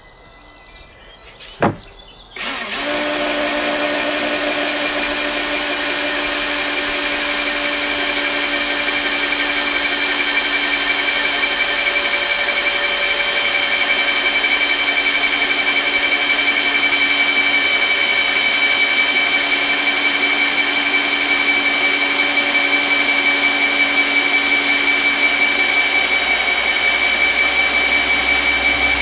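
Cordless drill boring through an 18 mm board with a large 5-inch hole saw. After a sharp click, the drill starts about two and a half seconds in and then runs steadily under load.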